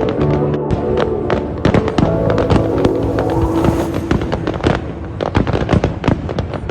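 Fireworks going off in a rapid barrage: many sharp bangs and crackles a second, with background music of held notes underneath.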